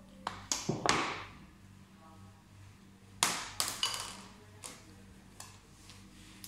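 Two quick clusters of taps and knocks, hard objects being handled against a plastic machine cover, about half a second in and again about three seconds in, with a couple of lone ticks after, over a faint steady low hum.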